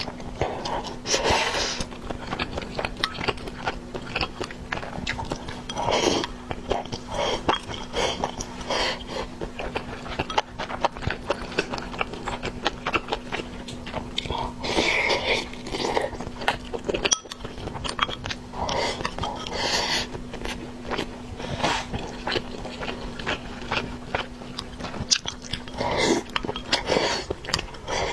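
Close-up eating sounds of a person chewing and biting into noodles and a chicken drumstick in sauce: many short clicks with louder bursts scattered throughout. A steady low hum runs underneath.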